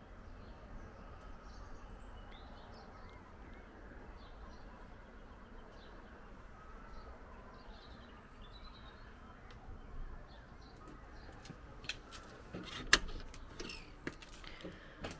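Small birds chirping faintly over low outdoor background noise. Near the end comes a run of sharp clicks and knocks as the lever handle and latch of a glazed front door are worked, one click much louder than the rest.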